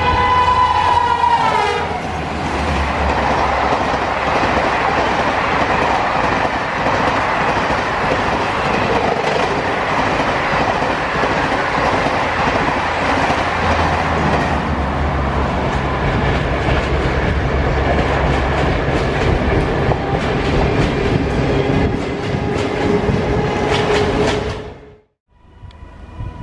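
An Indian Railways electric locomotive sounds its horn as it passes, the pitch dropping. Then a long express of green-and-yellow Garib Rath coaches rushes past at speed with loud wheel clatter on the rail joints. The passing noise cuts off abruptly about a second before the end.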